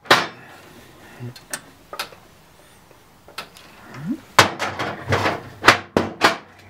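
Sharp clicks and clacks of hands working at a parking pay station's housing as it is powered up: a few single clacks, then a quick run of them over the last couple of seconds.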